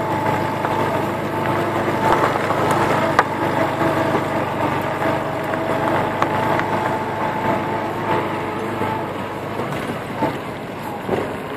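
Car driving slowly along a dirt road: steady engine and tyre noise, with a few sharp ticks.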